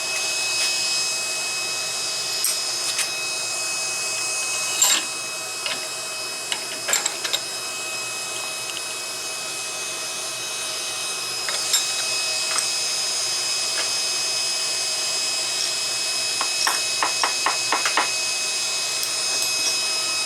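Handheld induction heater running, its cooling fan giving a steady rush with a constant high whine. Sharp metal clicks and taps from handling come now and then, with a quick run of about six clicks near the end.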